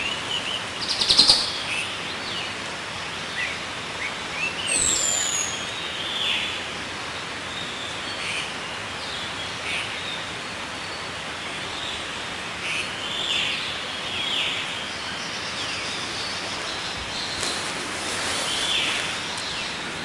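Several wild birds chirping and calling in short, scattered notes, with a loud chirp about a second in and a high whistle falling in pitch about five seconds in, over a steady background hiss.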